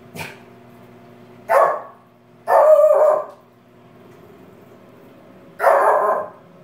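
Small curly-coated dog barking three times, the middle bark the longest, with a short faint yelp just before the first.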